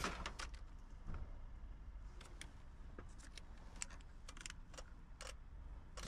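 Faint, scattered clicks and light rattling of a test light's clip and leads being handled and hooked up to the battery negative.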